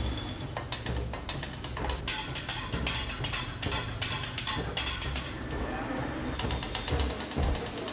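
Teppanyaki chef rapping his metal spatula and utensils against each other and the steel griddle: a fast run of metallic clacks, densest from about two to five seconds in.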